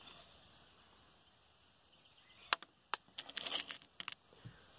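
Lead airgun pellets clinking in their metal tin as fingers pick through them. There are a few sharp clicks about halfway in, then a quick run of clinks and rattles.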